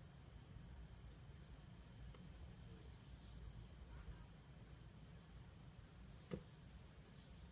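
Slime being worked by hand, faint soft crackles and rubbing, with one sharp click about six seconds in.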